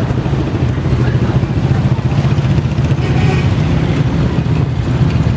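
Street traffic of jeepneys and motorcycle tricycles, their engines running in a steady low rumble.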